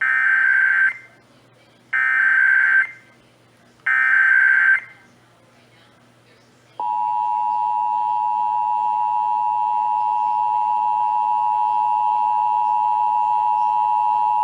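Emergency Alert System test: three SAME header data bursts of about a second each, two seconds apart, then, about seven seconds in, the steady two-tone EAS attention signal (853 and 960 Hz) begins and holds.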